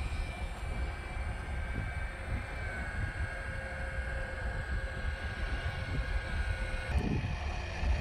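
Distant FX-61 Phantom flying wing in flight, its electric motor and propeller whining steadily with a rumble of wind on the microphone. The whine shifts in pitch about two and a half seconds in and cuts off abruptly near the end.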